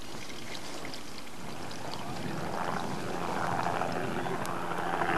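A low, steady engine drone over a noisy hiss, growing louder toward the end.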